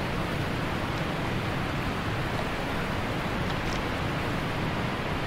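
Steady rushing outdoor noise with a rumbling, fluttering low end, typical of wind blowing across the microphone.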